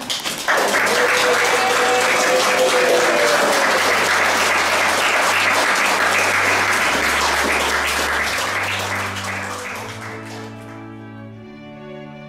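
Wedding guests break into loud applause just after the couple are pronounced husband and wife and kiss, over soft instrumental music with slow sustained bass notes. The clapping fades away near the end, leaving the music.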